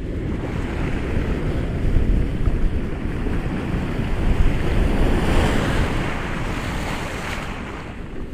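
Ocean waves breaking on a shore, a continuous rushing wash over a deep low rumble. A wave swells and breaks with a loud hiss of spray a little past the middle, then draws back and eases near the end.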